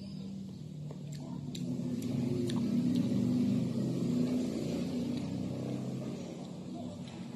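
A motor vehicle's engine running with a low hum, growing louder about two seconds in and easing off again toward the end, as if passing by. A few faint clicks sound early on.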